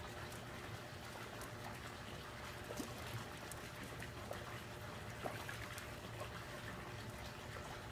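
Swimming pool water trickling steadily, with a few faint taps.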